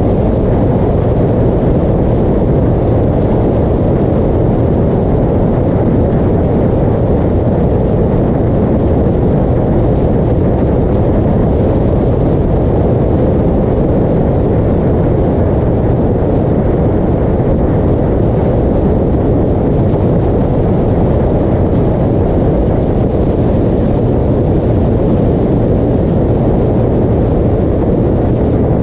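Motorcycle cruising at steady highway speed: a dense, even rush of wind on the microphone mixed with the engine's low running note, unchanging throughout.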